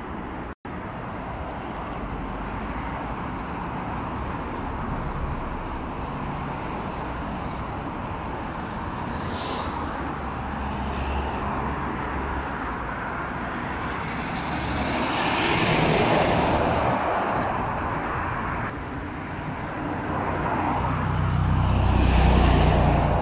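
Steady road traffic as cars and lorries pass, with a brief break in the sound just after the start. One vehicle swells past about two-thirds of the way through. Near the end an articulated lorry's diesel engine rumbles loudly as it passes close by.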